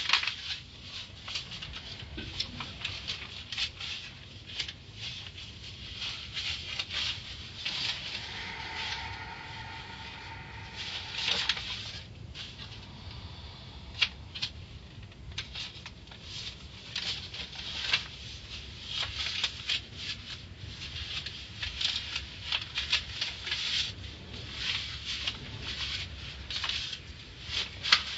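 Water dripping and spattering in irregular ticks on a car's roof and windshield inside an automatic car wash, heard from inside the car over a low steady rumble. A short whine sounds for a few seconds about eight seconds in.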